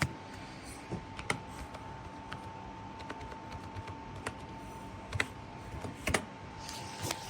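Computer keyboard being typed on in short irregular keystrokes, a login password being entered. A faint steady high tone runs underneath and stops shortly before the end.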